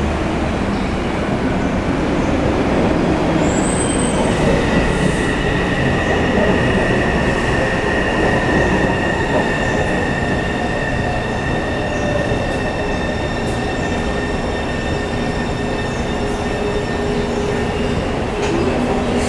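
Taipei Metro C301 train with retrofitted propulsion running on the line, a steady rumble of wheels on rail with a set of high, steady whining tones from the traction inverter that come in about four seconds in and hold. This inverter whine is the abnormal inverter noise the train is known for.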